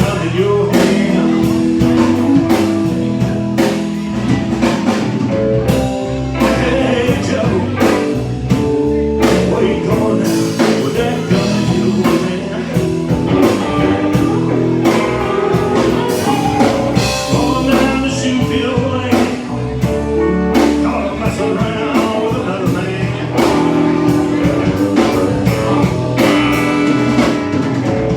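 A band playing a blues-rock song: a man's singing over electric guitar, bass and a drum kit.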